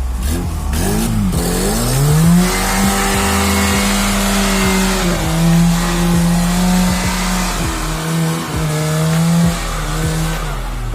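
Off-road vehicle's engine revving up about two seconds in and held at high revs, easing off and rising again a few times before dropping near the end, over a loud rushing noise.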